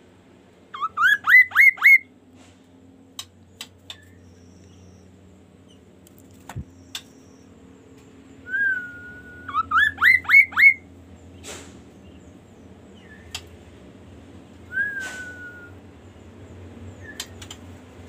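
Caged kaso-kaso bird whistling: a quick run of five rising whistled notes about a second in, then a held whistle leading into another run of five rising notes around the middle, and a short falling whistle later on.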